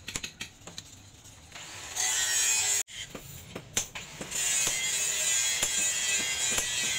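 Hammer blows on a hot-cutting chisel held against a red-hot steel leaf-spring blade on a post anvil, a series of sharp knocks over a steady high hiss that comes in about two seconds in.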